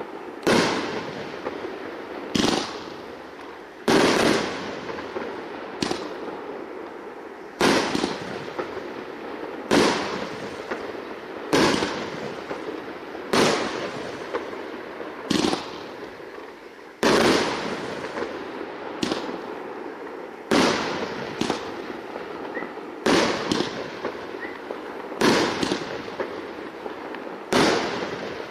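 500-gram consumer fireworks cake firing shot after shot, a sharp bang about every two seconds, each trailing off in a fading hiss. The shots come a little closer together near the end.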